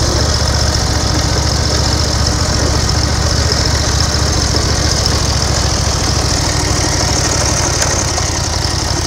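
Engine of a 1930 BSA 770 cc V-twin motorcycle running steadily at low revs as the bike pulls in to the roadside and stands ticking over.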